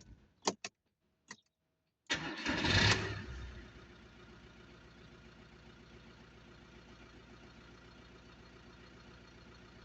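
A few clicks, then the Audi A6 C6's 2.0 TDI four-cylinder diesel cranks about two seconds in, catches and flares briefly before settling into a steady idle. It now starts after the pump relay was replaced to cure a no-start.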